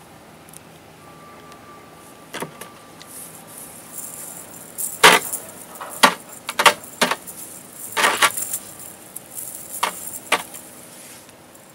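Clinking and rattling of a cast net's lead sinkers as the net is handled. The sound comes in several short bursts, the loudest about five seconds in and again around eight seconds.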